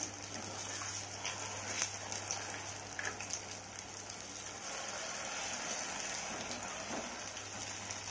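Maida-batter-coated susiyam dumplings deep-frying in hot oil in a pan: a steady sizzle, with a few faint clicks.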